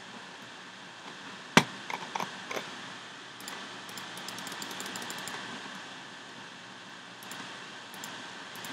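Computer mouse and keyboard: a sharp click about a second and a half in, a few softer clicks just after, then a quick run of faint key taps, over a steady hiss.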